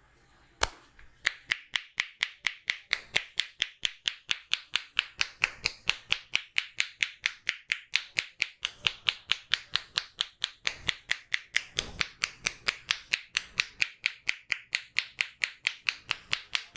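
Percussive tapping massage by a barber's hands: rapid, even clap-like strikes at about four to five a second. A single strike comes first, then the steady run starts just over a second in and keeps going.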